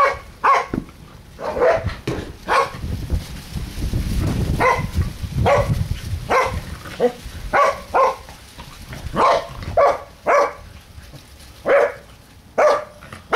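Pembroke Welsh corgi barking over and over in short, sharp barks, one or two a second with brief pauses: excited barking during play with a ball.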